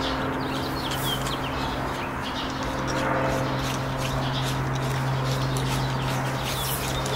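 Birds chirping now and then, over a steady low hum, with a few light clicks.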